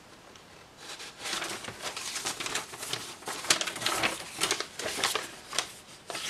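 Paper pattern sheets and an instruction leaflet rustling and crinkling as they are handled and turned over, in irregular rustles that start about a second in.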